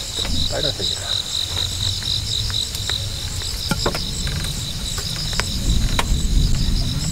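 Crickets chirping in a steady, evenly pulsed high chorus, under a low rumble that grows near the end and a few sharp clicks.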